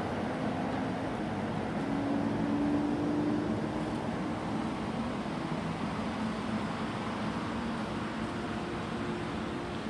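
Diesel engine of a wheeled log skidder running as the machine drives off, with a steady low drone whose pitch rises briefly about two seconds in, then eases slightly as it moves away.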